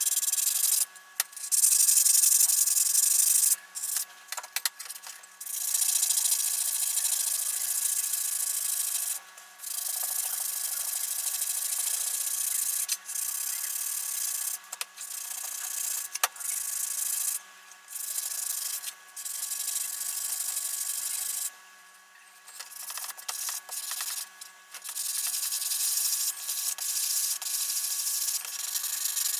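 Sanding: abrasive rubbing against a surface, a hiss in stretches of a few seconds broken by short pauses.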